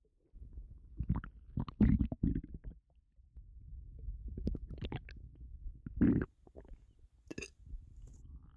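A bloated, upset stomach gurgling and rumbling in irregular surges, with gurgles peaking about two seconds in and again about six seconds in. A brief sharp click comes near the end.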